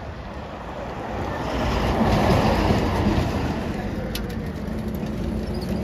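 A road vehicle driving past on a concrete highway: tyre and engine noise swells to a peak about two seconds in, then eases off.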